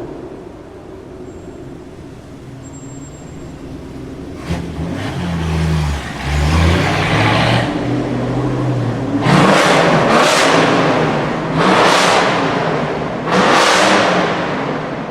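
Supercar engine accelerating in a tunnel. It is quiet at first, grows louder from about four seconds in, then gives four loud revs in the last six seconds.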